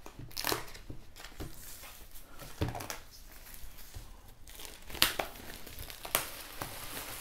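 Clear plastic shrink-wrap being torn and peeled off a cardboard box, crinkling and crackling irregularly, with two sharp snaps about five and six seconds in.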